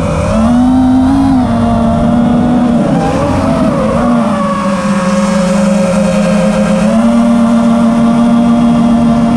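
FPV quadcopter's brushless motors and propellers whining continuously, the pitch dipping and rising with the throttle: it sags briefly at the start, drops lower about three seconds in, and climbs back a little before seven seconds.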